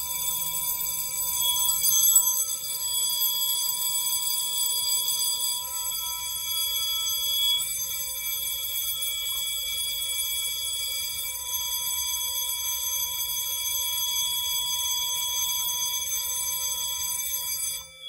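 Fire alarm supervisory bell ringing continuously, signalling a supervisory alarm from the activated duct smoke detector. It cuts off suddenly near the end, when the signals are silenced.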